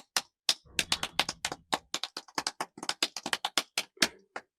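Typing on a computer keyboard: a fast, uneven run of key clicks, several a second, as foley for an office scene.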